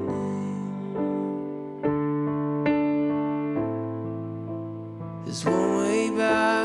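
Slow background keyboard music, held chords changing about once a second. About five and a half seconds in, a brighter, higher part with sliding pitches comes in over it.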